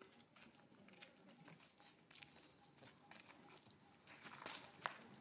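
Near silence: faint outdoor background with scattered soft clicks, a brief rustle about four and a half seconds in, and one sharper click just after it.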